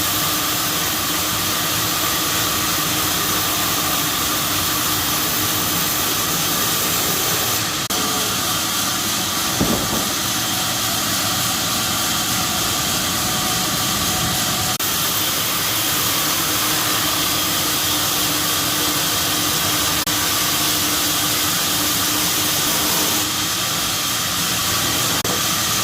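A machine running steadily with a strong hiss, its tone shifting slightly a couple of times.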